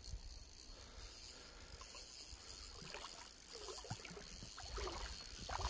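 Faint sloshing of water in a shallow stream, with a few soft knocks in the second half.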